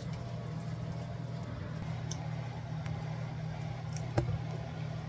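Steady low hum from a running motor, with a single light click about four seconds in.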